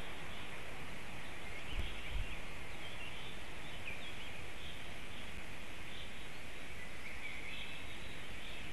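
Steady hiss of outdoor forest ambience on a nest-camera microphone, with faint, scattered songbird chirps throughout and a couple of brief low bumps about two seconds in. The incubating black stork itself makes no call.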